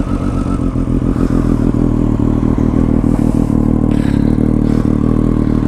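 Triumph Street Triple's inline three-cylinder engine idling steadily just after a cold start, loud through an Akrapovič exhaust with its dB killer removed.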